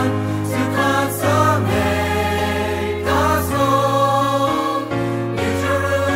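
Background music: a choir singing a Christian hymn over held bass notes.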